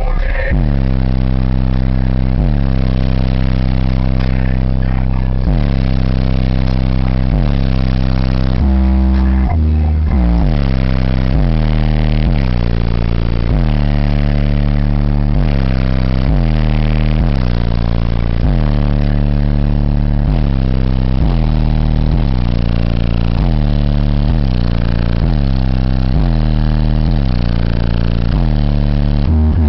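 Bass-heavy music played loud through a car audio system of four 15-inch Digital Designs subwoofers on two Digital Designs amplifiers. The bass line steps from note to note about every half second to a second.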